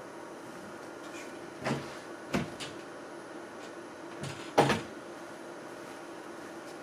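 A handful of short clicks and knocks from computer parts being handled on a desk, the loudest about four and a half seconds in, over a steady low hum.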